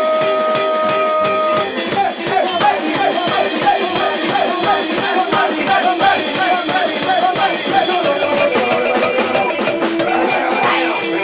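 Rock band playing live: electric guitars, bass and drum kit at a steady beat. A held chord rings for the first second and a half, then the band moves into a busier passage with a wavering melody line.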